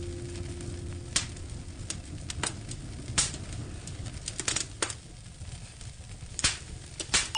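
Firewood burning in a fireplace, crackling with irregular sharp pops and snaps, a few of them louder, over a low steady hiss.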